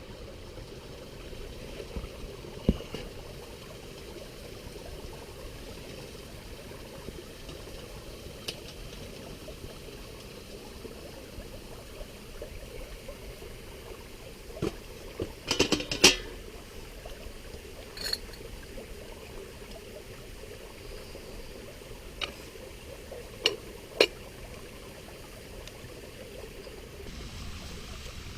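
A river running steadily over rocks, with a few sharp clicks and knocks on top, the loudest cluster about halfway through and two more near the end.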